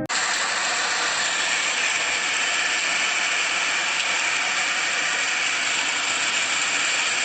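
Heavy storm rain pouring down in a steady, dense hiss that starts abruptly and holds an even level.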